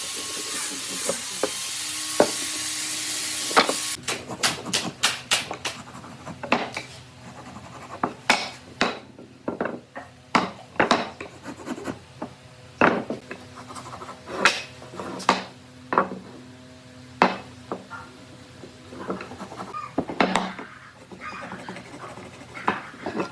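A steady hiss that cuts off about four seconds in, then irregular sharp knocks and clicks of tools and wood being handled in a workshop.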